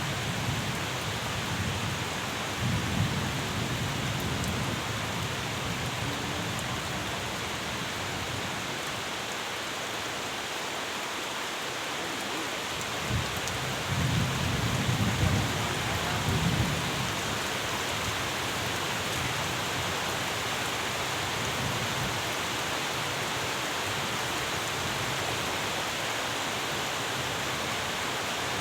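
Steady rain falling, with low rolls of thunder: a short one about three seconds in and a longer one from about thirteen to seventeen seconds.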